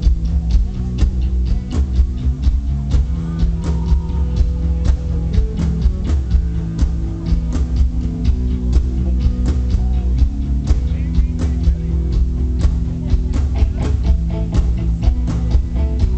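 Live rock band playing, guitars and bass over a drum kit keeping a steady beat, with a heavy, bass-dominated low end.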